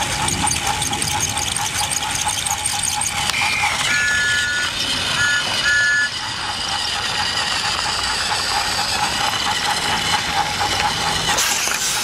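Battery-powered Thomas Trackmaster toy engine running on plastic track: a steady small-motor whine with the wheels rattling fast along the rails. A few short high tones sound about four to six seconds in, one longer and then two brief ones.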